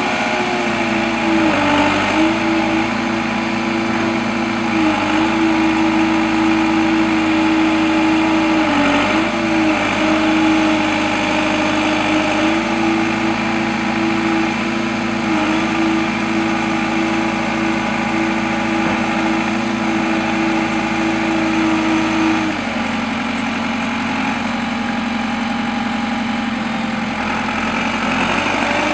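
JCB 4CX backhoe loader's diesel engine running at a steady speed, its pitch sagging briefly several times. About two-thirds of the way through it drops to a lower speed, then rises again near the end.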